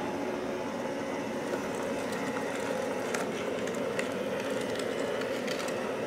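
Qihan Donkey E1 Lite robot vacuum running on carpet: a steady hum from its suction fan and brushes, with a few faint clicks.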